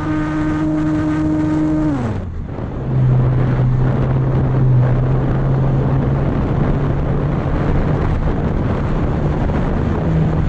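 Electric motor and propeller of a small RC trainer plane running steadily, then falling in pitch about two seconds in as the throttle is pulled back. A lower steady drone follows under loud rushing air noise.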